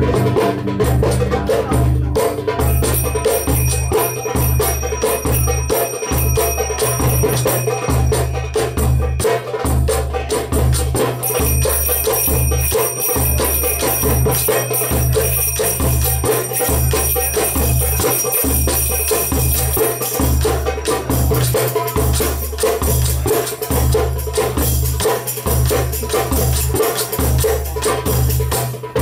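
Live Middle Eastern percussion ensemble playing a steady dance rhythm: doumbek and bass darbuka strokes over a pulsing bass, with jingling riq and bright finger cymbals (zills) ringing through much of the first two thirds.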